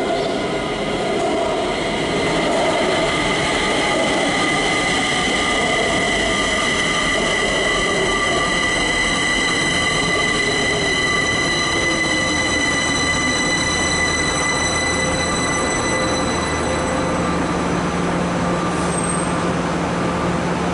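Kaohsiung MRT Red Line electric train pulling into the station and slowing: its motor whine falls steadily in pitch over about ten seconds, under high steady whining tones that fade out a few seconds before the end. Near the end a low steady hum takes over.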